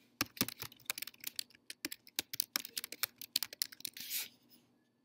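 Typing on a computer keyboard: a quick, uneven run of key clicks for about four seconds, then stopping.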